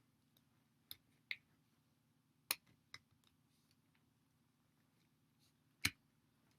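Near silence broken by a few scattered sharp clicks and light knocks, the loudest about two and a half seconds and six seconds in, from skateboard wheel and bearing parts being handled.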